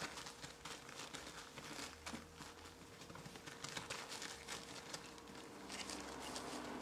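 Faint, irregular scratching and pattering of 20-day-old Border Collie puppies' paws and claws as they scramble over the bedding and against the wooden whelping box, with a thin steady hum underneath.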